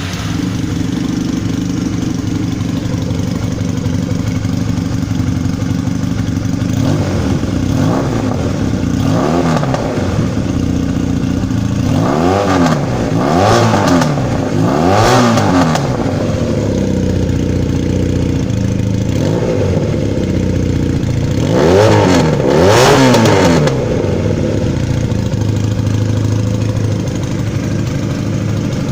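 Honda CBR 450's single-cylinder four-stroke engine running loud through a Pro X aftermarket exhaust with its tip removed. It idles steadily and is revved in short throttle blips, several times about a third of the way in and again twice past the middle, the pitch rising and falling with each blip.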